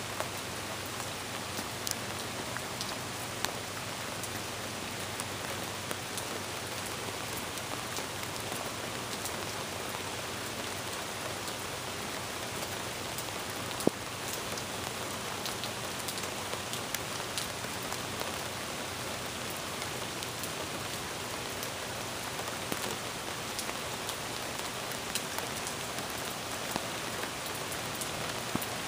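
Steady rain falling on a car's windshield, with many small drop impacts ticking on the surface and one sharper tick about halfway through.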